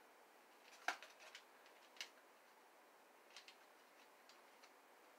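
A few faint clicks and taps of fingers working a small RC plane's battery out of its compartment, the sharpest about a second in.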